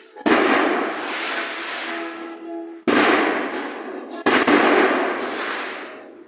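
Three loud sudden bangs, each trailing off in a long fading rush of noise, over faint string music.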